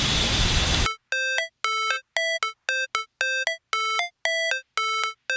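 A steady noise that cuts off sharply about a second in, followed by electronic music: short, clean synthesizer notes in a ringtone-like melody, about two a second with silence between them.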